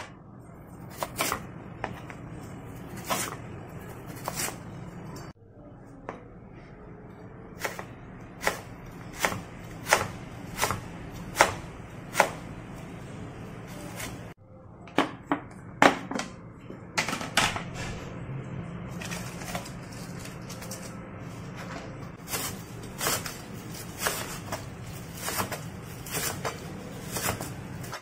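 Chef's knife cutting carrot and then green onions on a cutting board: irregular single knocks of the blade on the board, now spaced out, now several a second.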